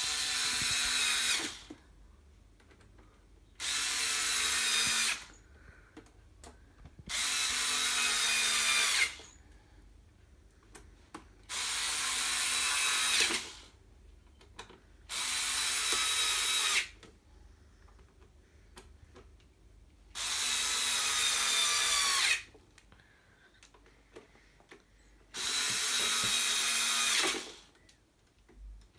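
Power drill-driver run in seven short bursts of about two seconds each, its whine sagging slightly in pitch during each run, with quiet pauses between.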